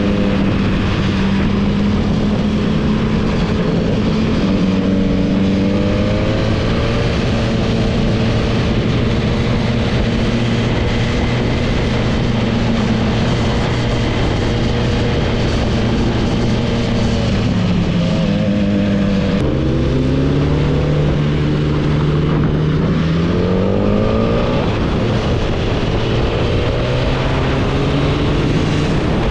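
Superbike engine running at steady cruising speed under heavy wind rush. About two-thirds of the way through the revs drop suddenly, then climb again as the bike speeds up.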